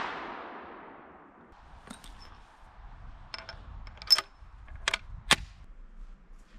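The echoing tail of a black-powder .45-70 shot from an 1873 Springfield trapdoor rifle dies away over the first second and a half. Then comes a series of sharp metallic clicks as the rifle's trapdoor breechblock is worked by hand, the loudest about four seconds in.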